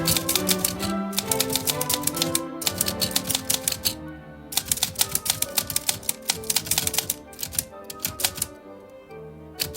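Typewriter keys striking in quick runs of clicks, broken by short pauses, over soft background music with held notes.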